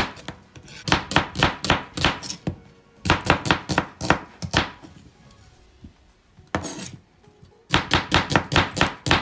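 Chef's knife slicing red onions on a plastic cutting board: quick knocks of the blade on the board, about four a second, stopping for a couple of seconds around the middle and then starting again.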